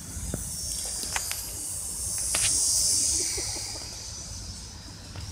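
Small quadcopter drone's propellers whirring with a high hiss that grows louder as it passes near, loudest about two and a half to three seconds in, then fades as it flies off.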